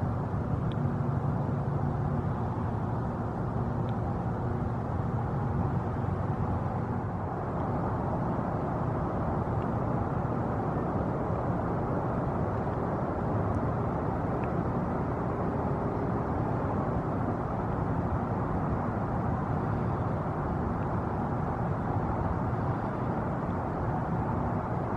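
A steady low rumble without distinct events, with a few faint high ticks scattered through it.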